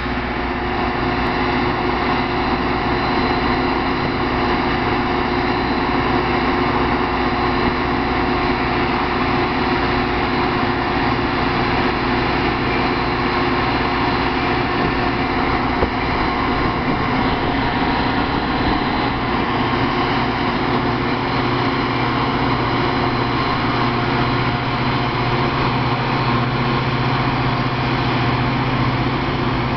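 Metra EMD F40PH diesel locomotive's 16-cylinder 645 engine running steadily under power as it pulls a train of bilevel coaches away, a constant low engine drone over the rumble of the rolling cars.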